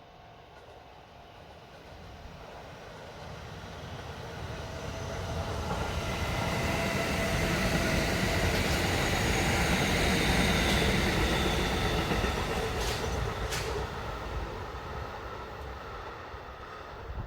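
Kintetsu Kyoto Line electric train approaching and passing. It grows louder to a peak about ten seconds in, then fades, with steady high tones over the rumble of the wheels. Two sharp clicks come as it goes by.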